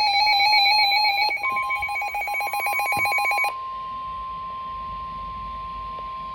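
A warbling, ringing electronic alert tone, pulsing rapidly in its second half, cuts off about three and a half seconds in. About a second and a half in, a steady single-pitch tone joins it and then carries on alone: the 1050 Hz weather-radio warning alarm tone that heralds an emergency alert broadcast.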